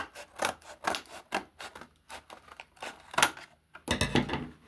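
Plastic blister packaging of a Hot Wheels die-cast toy truck being handled and opened: irregular scrapes, rubs and clicks, with a denser rustling stretch near the end.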